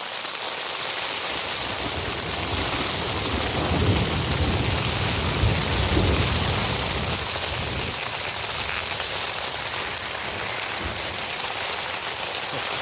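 Heavy rain drumming steadily on a tent's fabric during a thunderstorm, with a long low roll of thunder swelling about two seconds in and dying away after about seven seconds.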